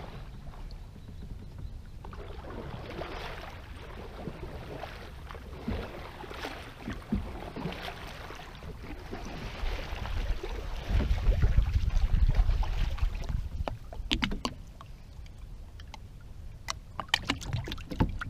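Canoe paddle strokes swishing and splashing in the water, one after another, then a louder low rumble for a couple of seconds. Near the end come several sharp knocks as the canoe comes alongside a floating plastic dock.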